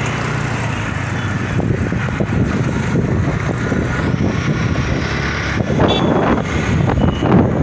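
Motorbike riding along a busy road: engine and traffic noise with wind buffeting the microphone, gusting harder near the end.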